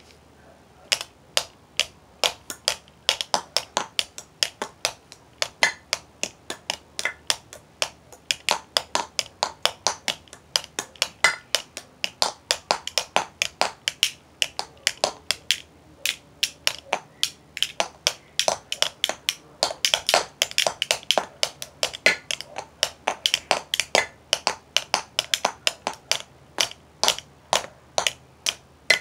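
Rapid, uneven sharp taps of drumsticks on a hard surface, about three or four strikes a second, starting about a second in.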